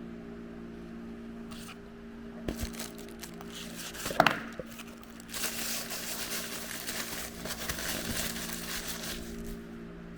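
Plastic packaging crinkling and tearing as a toy bag is opened and handled, with a sharp crackle about four seconds in and dense crinkling through the second half.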